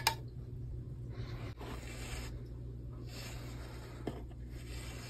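A sharp double click, then soft intermittent rustling and scraping with another small click, as a glass aquarium lid and its black plastic handle and hinge strip are handled on carpet.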